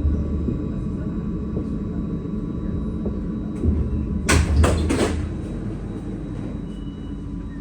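Paris line T2 tram running with a low rumble that slowly eases off, with a quick cluster of three or four sharp clacks about four to five seconds in.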